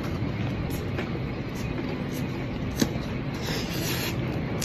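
Eating sounds from a fried chicken burger, chewed over a steady low background hum, with a sharp click near three seconds in and a brief crackling rustle soon after.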